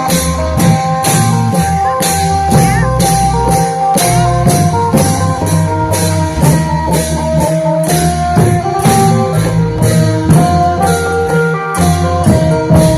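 Isan klong yao long-drum ensemble playing a slow, swaying rhythm: drums under a steady beat of bright metallic strokes, with a plucked-string melody on top.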